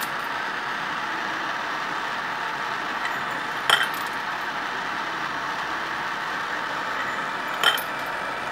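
Two gas hand torches hissing steadily as they heat brass rifle cases on a rotating annealer plate. Two sharp metallic clinks come about four seconds apart as annealed .308 cases drop out of the plate.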